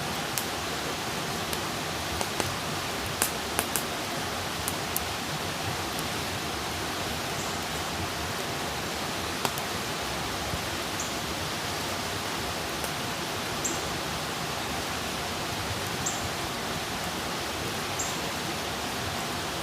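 Campfire burning with a steady hiss and scattered sharp crackles and pops, thickest in the first few seconds. From about halfway, a short, high chirp repeats every two to three seconds.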